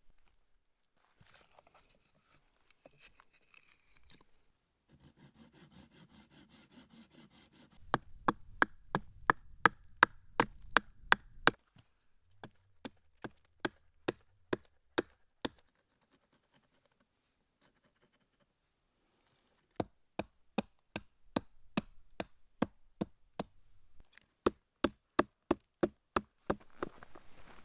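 Axe chopping wood in quick runs of sharp strikes, about three to four a second, three runs in all with short pauses between.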